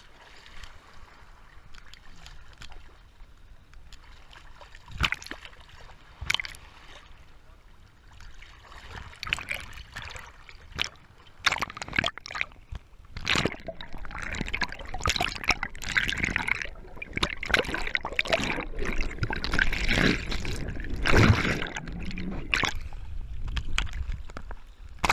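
Water sloshing and splashing around a GoPro in its waterproof case as it moves through shallow water, with sharp knocks against the case. Fairly quiet at first, then busier and louder from about halfway.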